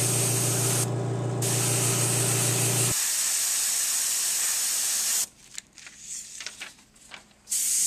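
Airbrush hissing as it sprays tattoo paint through a stencil, with the air compressor's motor humming until it cuts off about three seconds in. The hiss stops for about two seconds after the halfway point, with a few faint clicks, and starts again near the end.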